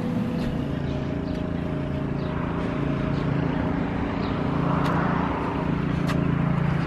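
Outdoor traffic noise over a steady low mechanical hum, with a vehicle's noise swelling as it passes about five seconds in.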